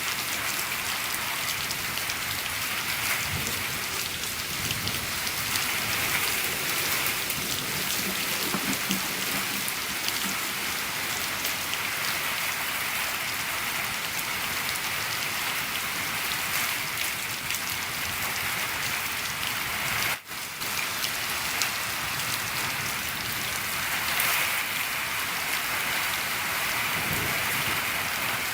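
Steady heavy rain drumming on a shed roof, a dense even patter. It cuts out for a split second about twenty seconds in.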